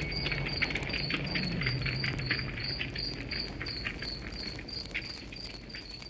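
A cricket chirping in an even rhythm, about four chirps a second, over the crackling of a campfire. A low ringing tone dies away in the first second or two, and the whole sound fades out near the end.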